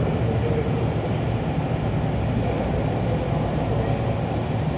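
Steady low hum and rumble inside a Kintetsu 6020-series commuter train car, heard through the car at a station platform.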